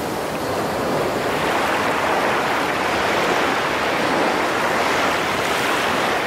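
Steady, even rush of water circulating in an aquarium.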